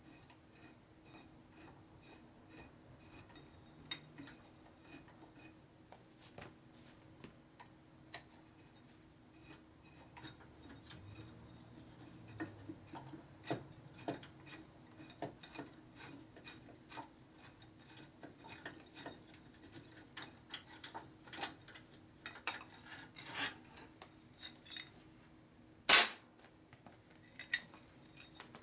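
Scattered light metallic clinks and taps of hand tools against metal motorcycle parts, growing busier through the second half, with one sharp, loud knock near the end.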